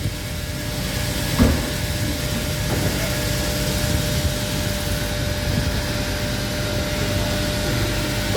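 Wood-Mizer WB2000 industrial band sawmill running: a steady machine drone with a thin steady tone above it, and a single clunk about one and a half seconds in.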